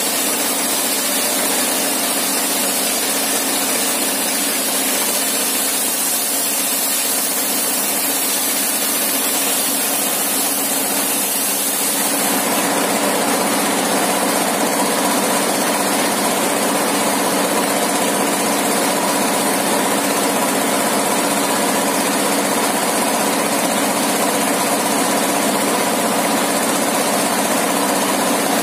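Engine-driven table circular saw (serkel) running steadily while ripping a wooden plank into thin boards. About twelve seconds in the cut ends and the saw spins free, the engine's tone coming through clearer and slightly louder.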